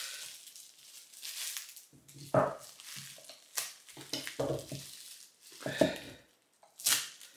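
A blade scraping and cutting at the plastic seal of a shaving soap tub, in short irregular bursts of crinkling and scraping, with small knocks of the container being handled.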